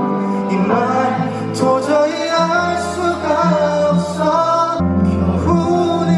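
Music: a song with singing over held bass notes that change every second or so.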